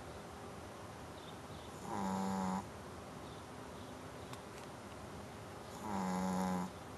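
A sleeping pet snoring through its nose: two short, pitched snores about four seconds apart, each under a second long.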